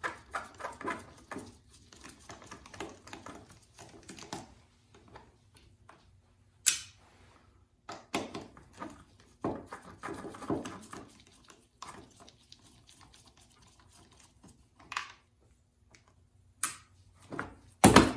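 A wrench working the bolts on a Homelite XL chainsaw: rapid clicking for the first few seconds, then scattered metal clicks and knocks. There is a sharp click about seven seconds in, and the loudest clunk comes near the end.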